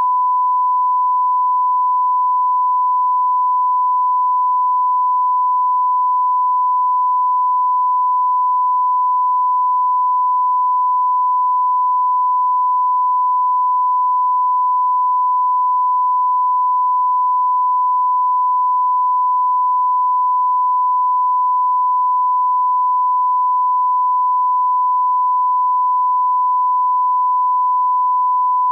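A steady 1 kHz sine test tone, one pure pitch held unchanged at a constant level: the line-up reference tone placed at the head of a film for setting audio levels.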